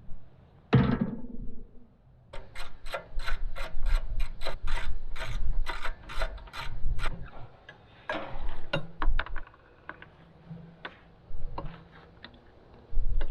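Rapid mechanical clicking, about four clicks a second for some five seconds, then a few shorter runs of clicks, like a hand-worked ratchet mechanism. A loud rasp comes about a second in.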